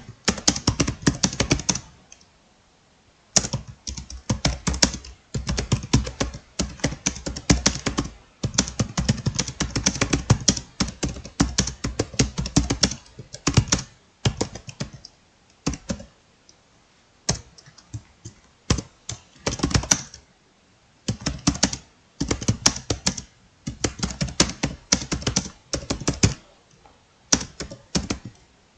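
Fast typing on a computer keyboard: dense runs of key clicks, broken now and then by brief pauses of about a second.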